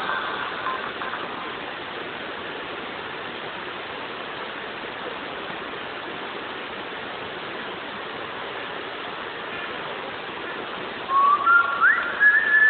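Running stream water at a waterfall, a steady rushing hiss. Near the end a person whistles a note that rises, then holds a higher one.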